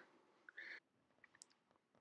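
Near silence: a pause in the narration, with one faint, brief sound about half a second in.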